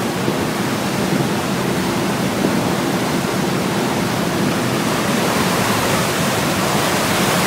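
Ferry's wake churning and rushing steadily behind the stern, with the steady low hum of the ship's engines underneath.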